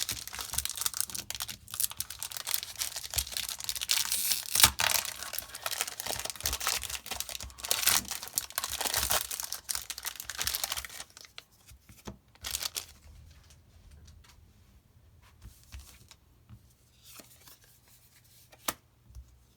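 A trading-card booster pack's foil wrapper being torn open and crinkled for about eleven seconds, then a few quieter, scattered clicks of the cards being handled.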